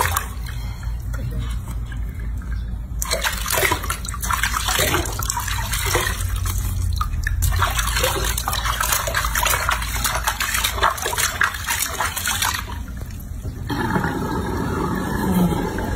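Bath water splashing and sloshing in a sink as hands scrub a baby monkey, in irregular bursts, with a brief lull near the end.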